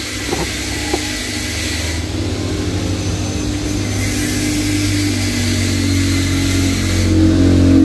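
An engine running steadily with a low hum that grows louder toward the end. Two light clicks come about half a second and a second in.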